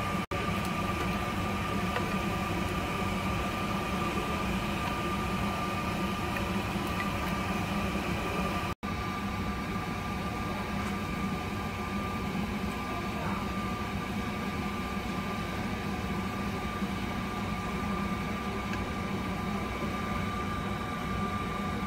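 Steady machine hum with a thin, high whine held at one pitch, typical of a kitchen fan or appliance motor. It drops out for an instant twice.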